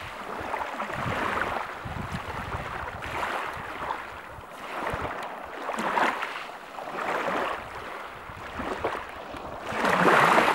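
Sea surf washing onto the beach, the rush of each wave swelling and fading every couple of seconds, loudest near the end, with wind rumbling on the microphone.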